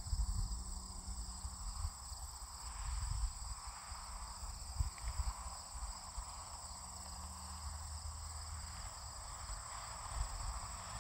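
Steady high-pitched chorus of summer insects, with an uneven low rumble underneath.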